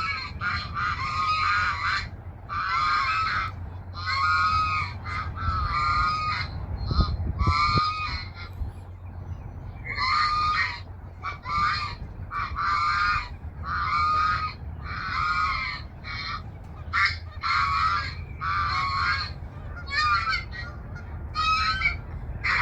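Geese honking over and over, one loud call after another roughly every second, with a few shorter, quicker honks mixed in.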